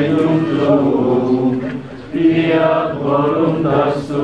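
Voices singing a slow liturgical chant in long held notes, with brief breaks for breath about two seconds in and near the end.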